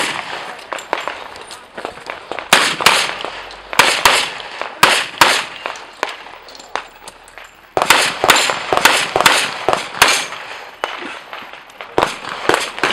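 Pistol shots fired in quick strings of two to several shots, with pauses of a second or two between strings, each shot sharp and followed by a short echo.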